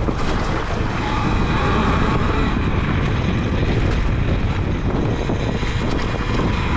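Talaria Sting R electric dirt bike riding along a dirt trail: a steady rolling noise from its knobby Pivotrax Kilowatt Climber rear tire and the drivetrain, quieter on the trail than on pavement.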